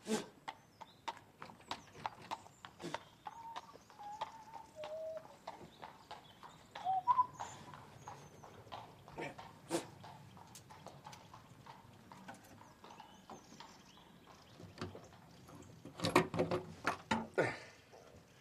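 A run of irregular sharp clicks and knocks, with a few short chirps in the first half. Near the end comes a quick flurry of louder rattling knocks from the lock of a wooden front door being worked.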